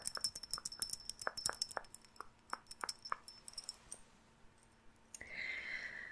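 Small metal earrings jingling close to the microphone: a quick run of light metallic clinks, about four a second, with a high ringing tone. They stop about four seconds in.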